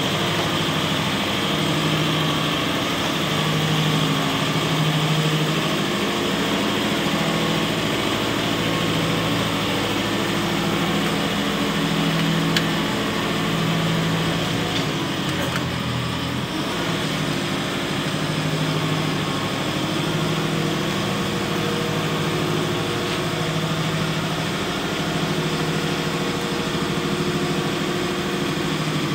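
JCB 535-140 telehandler's diesel engine running steadily while the hydraulics raise and extend the boom. The note has a slow, regular throb and shifts slightly about halfway through.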